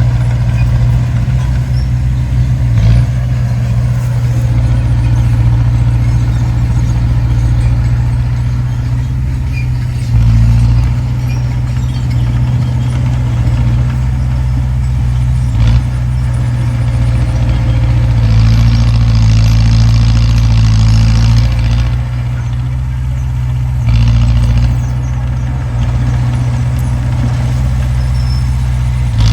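Heavy diesel engine of earthmoving machinery running steadily with a deep, low drone, with a couple of short knocks and a few seconds of hiss past the middle.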